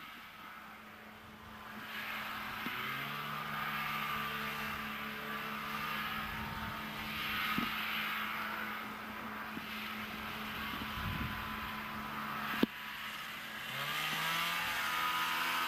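Snowmobile engine running, its sound swelling and fading several times as it moves about, with the pitch rising near the end. A single sharp click comes late on.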